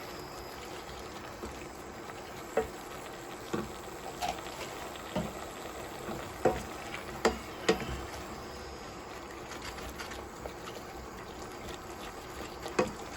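Mushroom, spinach and cream sauce simmering and bubbling in a pan, a steady sizzle broken by several sharp clicks and pops.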